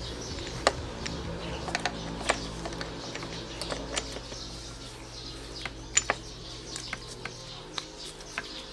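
Scattered sharp metal clicks and taps as a kickstarter shaft assembly is handled and fitted into a Yamaha DT125 two-stroke crankcase, over a low steady hum that stops near the end.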